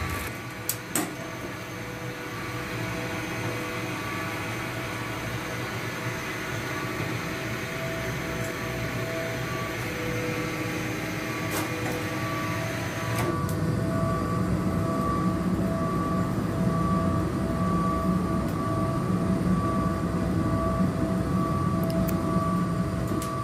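Machinery of a 1920s wood-chip boiler plant running with a steady mechanical hum and a faint pulsing tone, with a few clicks at the start. About 13 seconds in, the sound turns to a deeper, louder rumble.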